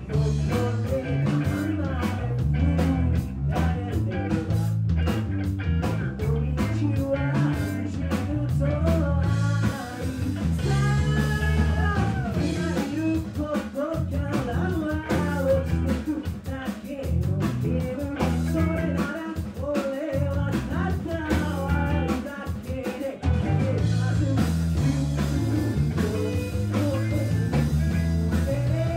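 Live rock band playing: electric bass and drums keep a repeating groove, with electric guitar, while a male vocalist sings into a handheld microphone.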